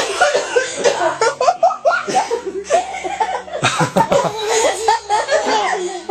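People laughing, several voices overlapping at times.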